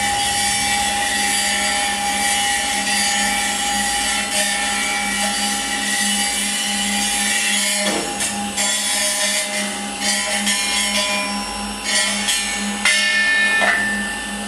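Free-improvised experimental music from a drum kit played with extended techniques and a tabletop guitar with electronics: a dense scraping, rubbing texture over steady held tones. A downward-sliding squeal comes about halfway through and another near the end, with sharper, louder scrapes in the last few seconds.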